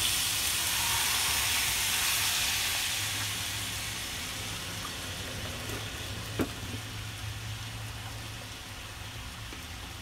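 Diced carrots, green beans, corn and minced meat sizzling in a frying pan as a thin stream of liquid seasoning is poured in. The sizzle is loudest over the first few seconds and slowly dies down, with one sharp click about six seconds in.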